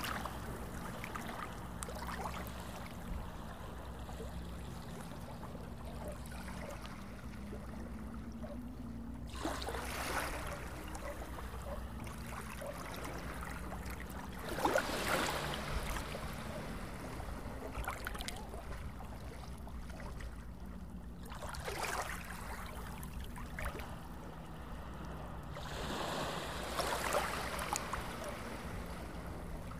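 Water ambience: a steady trickle, swelling into louder washes about every five or six seconds, over a low steady hum.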